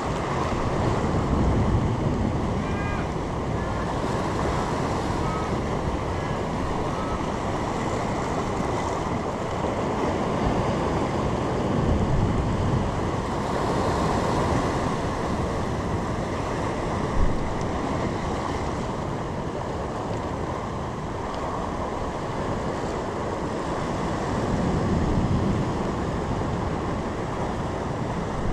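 Sea surf washing, with wind buffeting the microphone. The noise swells about three times as waves come in, and a single sharp knock sounds about two-thirds of the way through.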